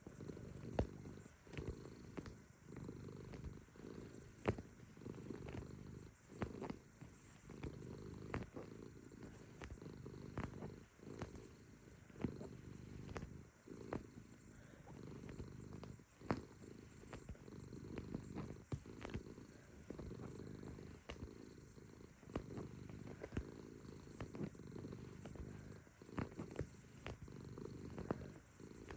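Domestic cat purring steadily, with soft irregular clicks from its paws kneading.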